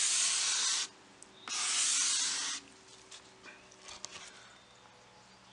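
A straight-edge razor blade used as a scraper, pushed along a stripped wood veneer tabletop: two scraping strokes of about a second each, then faint light scratches. It takes thin layers off the wood to level dents and a gouge.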